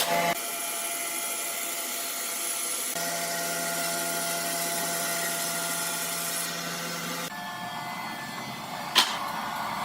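Sawmill machinery running steadily with a hum of several pitches, changing abruptly about three and seven seconds in, and one sharp knock near the end.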